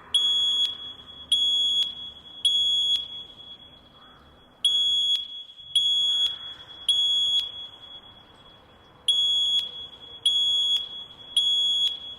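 Fire alarm voice-evacuation system sounding its evacuation tone in the temporal-three pattern. It gives three short, high-pitched beeps, pauses, and repeats the set three times. This is the standard signal to evacuate the building.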